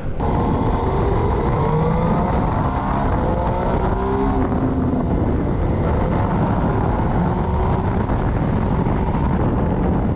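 Several motorcycle engines running together in a slow-moving mass ride, their pitches rising and shifting as different bikes accelerate, over a dense steady rumble.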